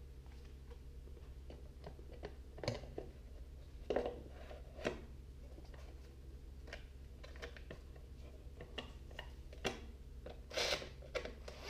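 Scattered clicks, knocks and rubbing of a plastic air cleaner cover and its filter being handled and fitted onto a small Briggs & Stratton engine, over a steady low hum.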